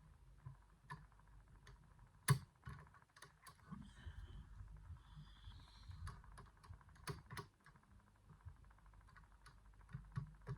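Pick working the levers of a Stuv 8-lever safe lock: light, irregular clicks as the levers are lifted and set, the sharpest about two seconds in and a few more together around seven seconds.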